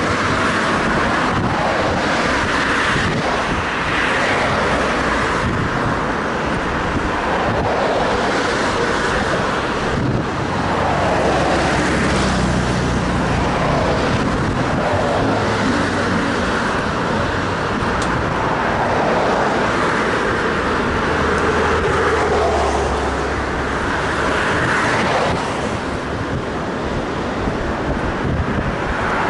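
Road traffic on the roadway beside the footpath: cars passing in a steady rush of tyre and engine noise, with one car's low engine hum coming through for several seconds around the middle.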